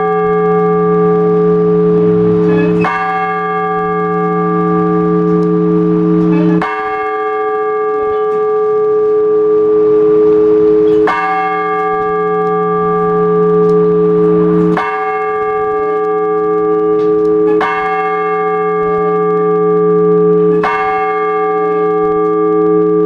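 Orthodox church bells rung to call the faithful to the All-Night Vigil: six strokes a few seconds apart, each several bells struck together, the bells ringing on between strokes. The deep bass bell drops out of the stroke about six or seven seconds in and returns with the next.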